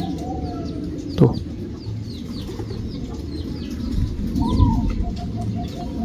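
Zebra doves cooing in quick runs of short, evenly spaced notes, with many high chirps from other caged birds over them. A single sharp knock sounds about a second in.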